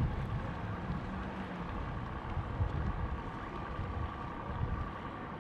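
Outdoor background noise: a low, uneven rumble with a faint steady hum above it.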